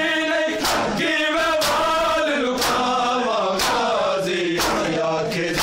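Men's voices chanting a nauha (Shia mourning lament), with bare hands striking bare chests in matam about once a second, keeping time with the chant.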